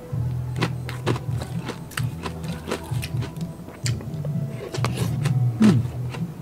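Close-miked crunching of crispy deep-fried mussels being bitten and chewed: a quick, irregular run of sharp crunches.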